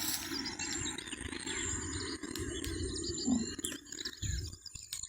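Open-field morning ambience: birds chirp and a thin high insect whine runs steadily under a low hum. A short, low cow call comes about three seconds in.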